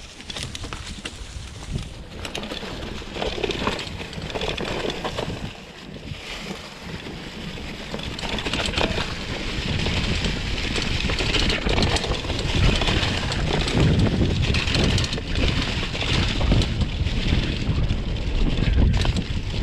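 2021 Gravity FSX Comp mountain bike's tyres rolling over a trail covered in dry fallen leaves, with wind rumbling on the microphone. It gets louder about eight seconds in.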